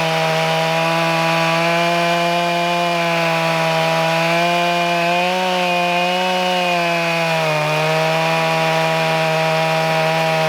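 Stihl MS 661 chainsaw with a 42-inch bar and ripping chain running at full throttle, cutting lengthwise through a log in an Alaskan chainsaw mill. The engine note holds steady under load, rising slightly in pitch around the middle and dipping briefly near the end.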